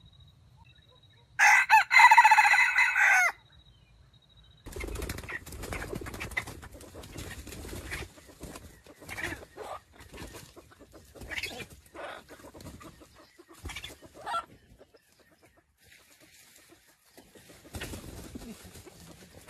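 A junglefowl rooster crows once, a loud call of about two seconds. Short clucks and rustling in dry leaf litter follow for about ten seconds, with a little more rustling near the end.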